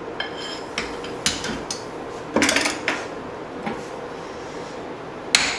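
Steel tools clinking and clanking as one forging hammer is put down and another picked up, with a louder ringing clank about two and a half seconds in. Near the end comes a single sharp hammer strike.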